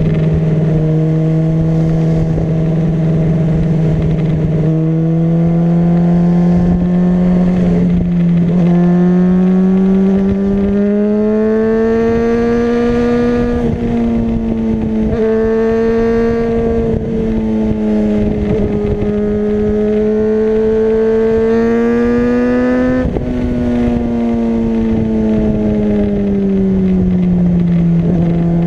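Honda CBR600RR's inline-four engine running steadily on the road. Its note climbs gradually over the first dozen seconds and holds. Near the end it rises briefly, then falls back.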